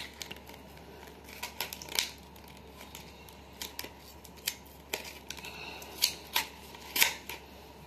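Cardboard-and-plastic blister pack of a Nivea lip balm being pried and peeled open by hand: irregular clicks, crackles and snaps of stiff card and plastic, the pack being hard to open.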